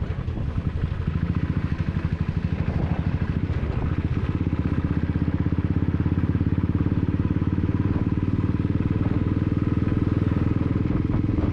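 Motorcycle engine running steadily at road speed, close to the microphone, its firing pulses coming fast and even.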